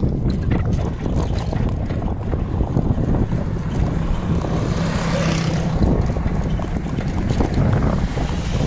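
Wind buffeting the microphone of a camera on a moving bicycle, a steady low rumble. About halfway through, an auto-rickshaw's small engine passes close by.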